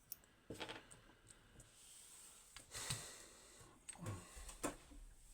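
Faint small clicks and light handling noise from a picked pin-tumbler lock being handled and shown, with a soft hiss swelling in the middle.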